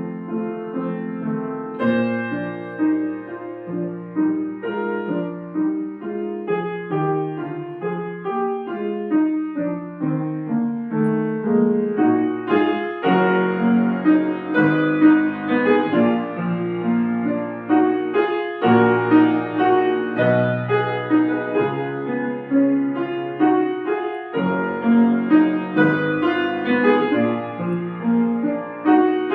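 Solo piano playing a classical piece: a continuous run of sustained notes, a melody over a flowing accompaniment.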